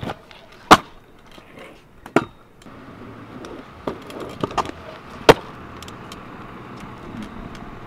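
Freestyle scooter clacking and knocking on pavement: two sharp, loud knocks, about a second in and just past five seconds, with smaller clacks between. A car passes on the road from a few seconds in.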